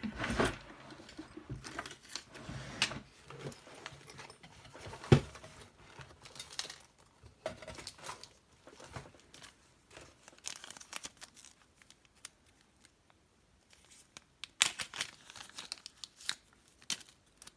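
Hands rummaging for a shim among small tools and parts: irregular rustling and crinkling with scattered sharp clicks, a sharp click about five seconds in and a busier flurry of clicks and rustling near the end.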